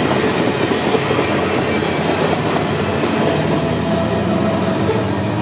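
Freight grain train rolling by: a steady rumble and clatter of wheels on the rails. About three seconds in, faint steady tones rise out of it, which fits the unusual howl that only some trains make; its cause is unknown.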